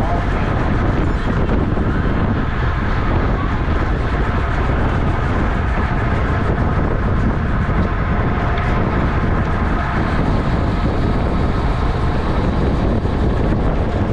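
Steady, loud wind noise on the microphone of a camera riding on a racing bicycle at speed.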